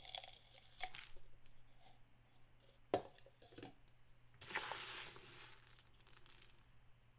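Fingers digging through dry dyed rice in a plastic tub: faint rustling and crunching of the grains in a few short spells, with a sharp click about three seconds in.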